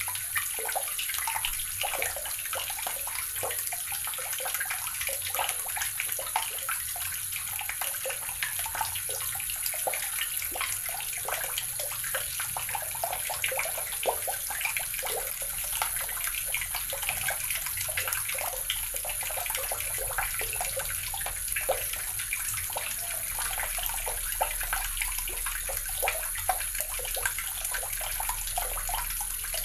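Water running from a tap in a steady stream, splashing and spattering continuously.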